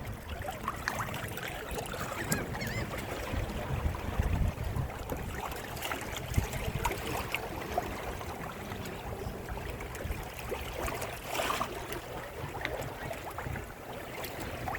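Wind buffeting the microphone and water rushing and splashing along the hull of a small sailing trimaran under way, with a brief louder rush of water about eleven seconds in.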